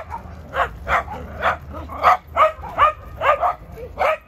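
Dog barking repeatedly in short, high-pitched yaps, about ten barks in quick succession.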